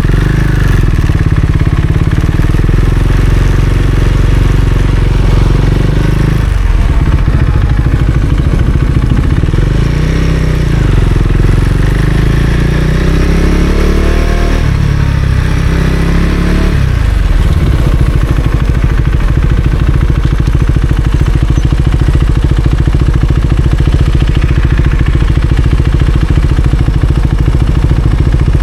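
Husqvarna Svartpilen 401's single-cylinder engine running under way. About six seconds in the revs drop, then rise and fall through gear changes, and for the last ten seconds or so it holds a steady pitch.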